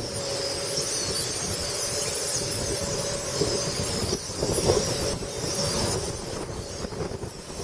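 A large flock of blackbirds calling all at once, a dense steady chorus of high squeaky chirps, over low wind rumble on the microphone.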